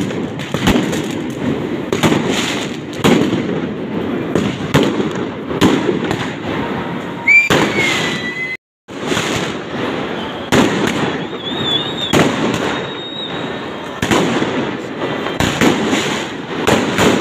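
Fireworks going off densely: rapid, overlapping bangs and crackles with no let-up, and a couple of brief high whistling tones about seven and a half and twelve seconds in. The sound cuts out completely for a split second about eight and a half seconds in.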